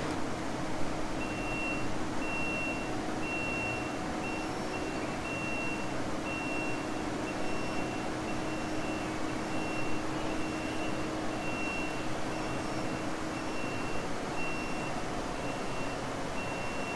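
Kubota compact track loader's reverse alarm beeping repeatedly over the steady drone of its diesel engine, the machine held in reverse to climb out of a hole.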